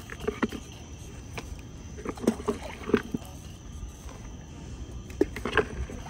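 A hand scooping wet shrimp bait paste out of a plastic bucket and tossing it into the water: scattered short squelches, knocks and light splashes at irregular intervals.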